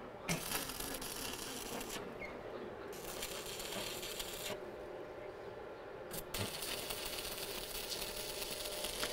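Electric arc welding on steel: the arc's steady crackling hiss in three runs, breaking off about two seconds in and again for nearly two seconds mid-way before starting once more.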